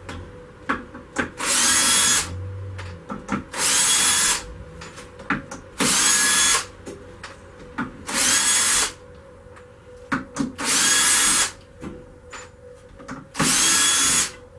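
Cordless drill working into a wooden beam in six short bursts of under a second each. The motor's whine rises as it spins up at the start of each burst, with small knocks and clicks between.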